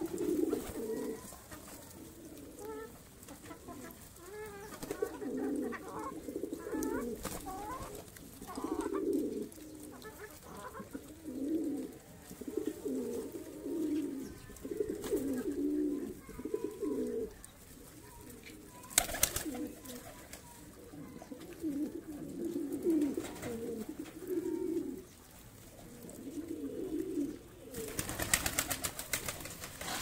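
A flock of domestic pigeons cooing: low, throaty calls repeating and overlapping one another. A brief flurry of wing flapping comes near the end.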